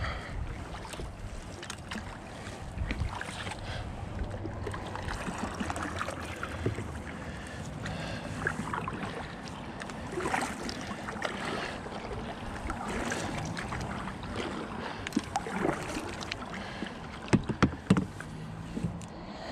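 Double-bladed kayak paddle dipping into the water stroke after stroke, with repeated splashes and drips from the blades.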